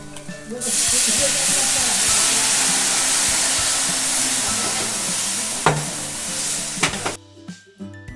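White wine poured into rice toasting in a hot paella pan, setting off a loud sizzle and hiss of steam about half a second in, with a wooden spoon stirring and scraping through the rice. The sizzle cuts off suddenly about seven seconds in, leaving a few quieter spoon clicks.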